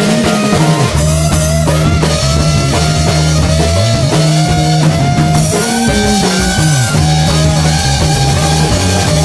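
Rock music with a drum kit and guitar, the guitar notes sliding and bending over steady low notes.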